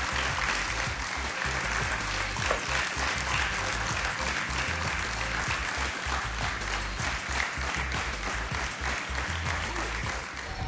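Studio audience applauding, dense clapping over music playing underneath.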